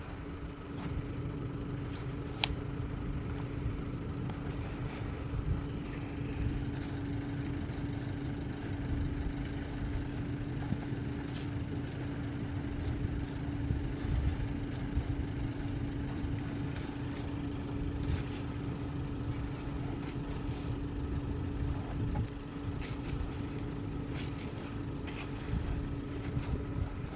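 A vehicle engine idling steadily, a constant low hum over a rumble, with scattered light clicks over it.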